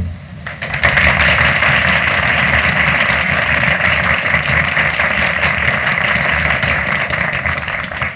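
Audience applause on an early sound-film soundtrack, a steady, even rush that starts just after the music ends and dies away at the very end.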